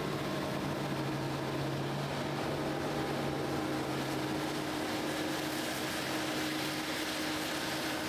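Steady mechanical hum of a Nexat combine harvester running while harvesting wheat, its tone shifting slightly about halfway through.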